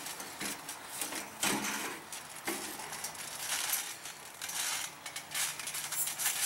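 Thumbtacks scattered over a trampoline mat rattling and crunching as wrestlers move and scramble on it, in a string of short, sharp bursts.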